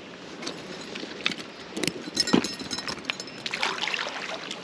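Creek water running, with scattered knocks, clicks and splashes as a trout is handled in a rubber-mesh landing net and the net is dipped into the water to release it.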